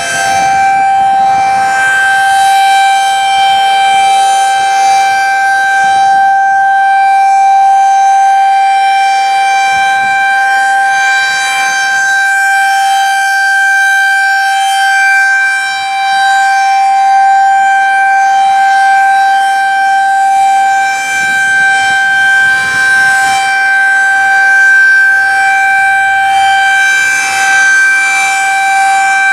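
Federal Signal 2001-SRN electronic outdoor warning siren sounding its steady alert tone, a single unusually high-pitched tone that swells and fades slightly as the rotating speaker array turns. About seven seconds in, the rotator hangs up and the siren sits still for a second.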